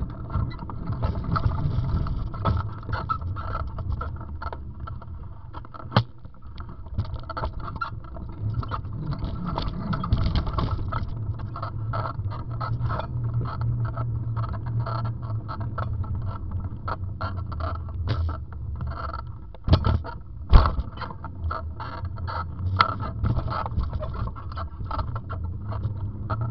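A bicycle rolling over sidewalk paving: a steady low rumble from the tyres and a constant rattle of the bike and its camera mount. There is a sharp knock from a bump about six seconds in and two more around twenty seconds in.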